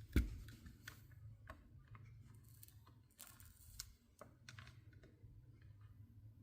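A sharp knock just after the start, then scattered light clicks and taps from tools being handled during stained glass soldering.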